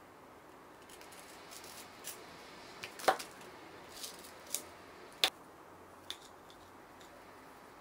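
Oreo cookies being twisted apart and their cream scraped off with a small spatula: quiet scraping and handling with about seven short, sharp clicks and taps, the loudest about three seconds in.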